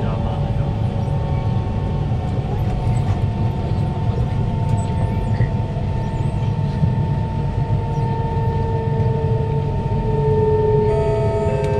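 Kawasaki C151 metro car with GTO-VVVF traction motors heard from inside the car. Steady wheel-and-rail rumble runs under a motor whine made of two tones: one holds steady, the other falls slowly in pitch.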